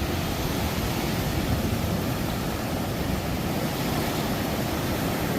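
Ocean surf washing onto the beach, a steady, even noise.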